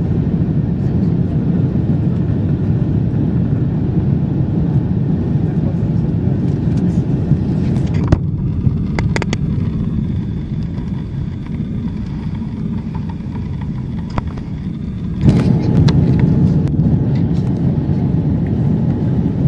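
Airbus A350-900 cabin noise during the climb: a steady low rumble of its Rolls-Royce Trent XWB engines and airflow. A few sharp clicks come about eight to nine seconds in, and the rumble steps up in level about fifteen seconds in.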